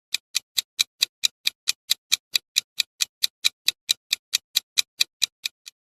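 Quiz countdown-timer sound effect: a clock-like tick repeating steadily at about four and a half ticks a second, stopping just before the end.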